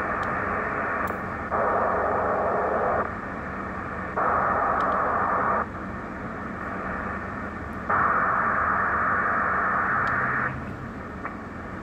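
ICOM IC-725 HF transceiver receiving band noise on 20 metres in single sideband: a steady radio hiss that jumps louder three times for a second or two, with a few faint clicks. The receiver is working; the noise is what the uploader is using as the reference for the S-meter, which does not respond to it.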